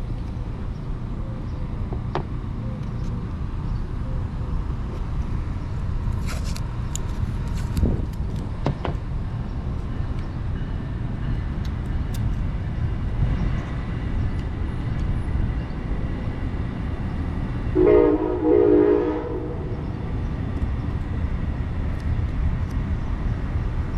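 Steady low background rumble. About three quarters of the way in, a horn sounds in two short blasts back to back.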